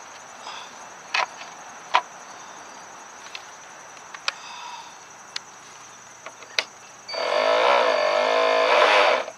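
Electric motor of a Raidentech Hydro Raido RC boat run up out of the water on the transmitter for about two seconds, a steady whine that starts and cuts off abruptly. Before it come a few scattered clicks from handling the battery connector and hull.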